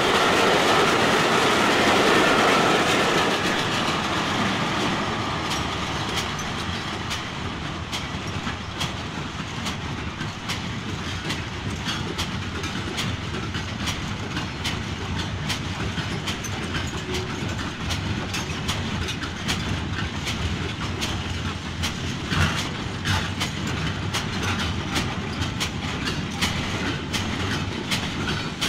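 HO scale model trains running on the layout's track, a steady running rush with rapid clicking of the wheels over the rail joints. The sound is loudest in the first few seconds and eases off after about four seconds, then the clicking carries on steadily.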